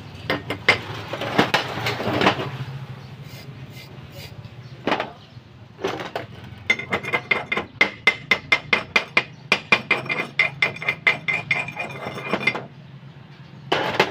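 Chipping hammer tapping slag off a fresh weld bead on a steel plate. Scattered sharp knocks come first, then a quick run of ringing metal taps, about four a second, for some six seconds, with one more knock near the end, over a steady low hum.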